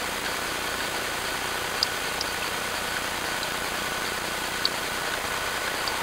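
Steady hiss from a trail camera's built-in microphone, with three short high chirps: two close together about two seconds in and one more past four seconds.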